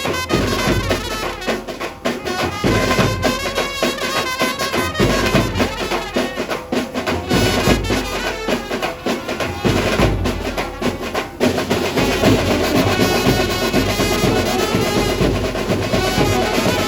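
Dhumal band playing a sawari dhun: saxophones carry the melody over steady, driving drums.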